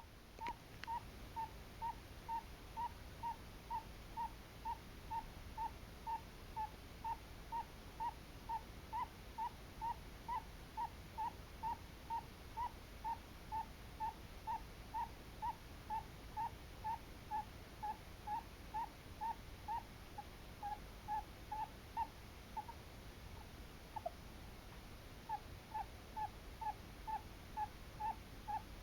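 A sleeping Djungarian hamster snoring or sleep-talking: short, high squeaky 'kuu-kuu' chirps in an even rhythm of about two a second. Near the end they pause for a few seconds, broken by one falling squeak, then resume.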